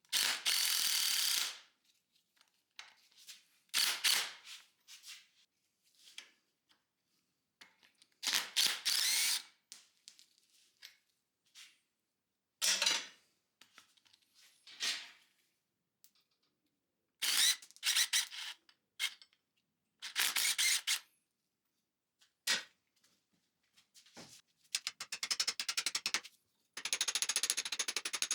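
Impact wrench hammering in about eight short bursts of roughly a second each, with pauses between them, as nuts and bolts are loosened.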